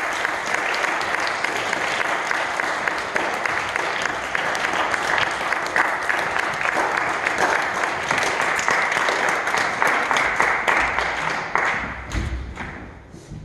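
Audience applauding: a dense run of clapping that dies away near the end.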